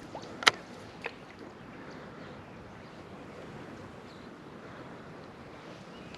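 Steady outdoor wind and water noise, with a sharp loud click about half a second in and a fainter click about a second in.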